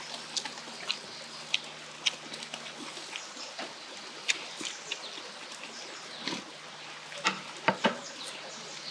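Pork sizzling on a barbecue grill, a steady hiss with scattered pops and crackles, mixed with people chewing lettuce-wrapped food close to the microphone; a few louder chewing sounds come between about six and eight seconds in.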